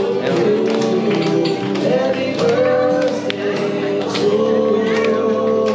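Music with singing: a voice holding long notes over a steady accompaniment.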